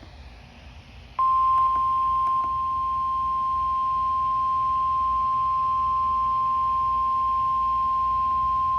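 NOAA Weather Radio 1050 Hz warning alarm tone: a single steady beep that starts about a second in, after faint radio static, and holds unbroken. It signals that a warning is about to be broadcast.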